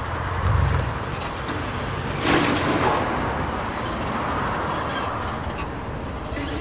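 Street traffic, with a vehicle passing by about two seconds in.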